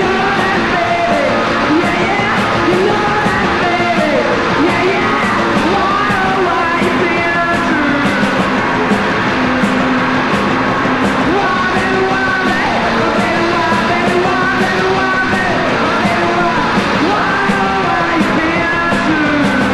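Punk rock song played by a full band, with yelled singing over it.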